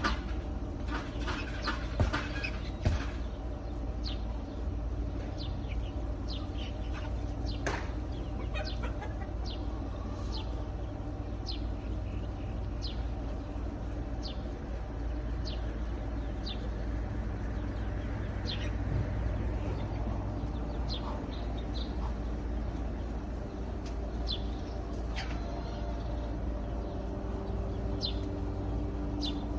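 Birds calling: short, falling high chirps repeating about once a second over a steady low hum, with a few sharp knocks in the first three seconds.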